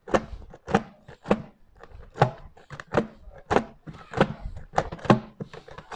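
Wire-mesh whisk on a metal pole being beaten through thick ice cream in a stainless steel can, knocking and scraping against the can's wall about twice a second, as flavour powder is mixed in.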